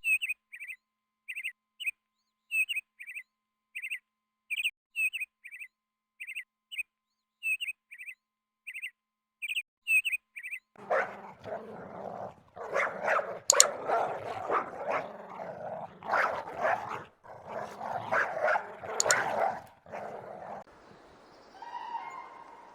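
A bird chirping in short, evenly spaced chirps, about two a second, for about ten seconds. Then a dog barks in a dense run of loud barks that lasts about ten seconds.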